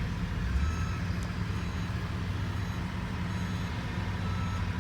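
Steady low rumble of a motor vehicle running, with faint short high beeps repeating about once a second.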